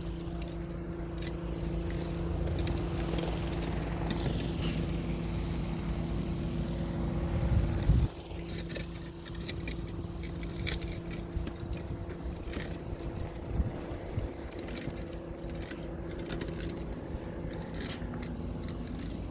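An engine running with a steady hum. The low rumble under it builds and then drops off suddenly about eight seconds in, with scattered clicks after that.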